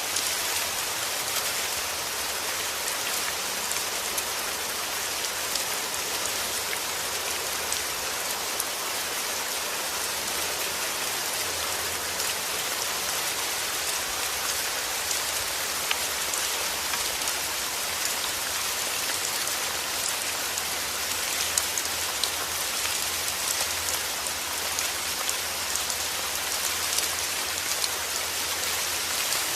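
Steady rain falling: a dense, even hiss with scattered sharp drop ticks.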